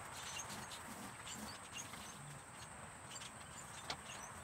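Faint backyard ambience: soft low clucks from young hens in a chicken tractor, scattered small ticks and high chirps, and a steady faint high tone. One sharp click near the end as the pen's wooden mesh door is handled.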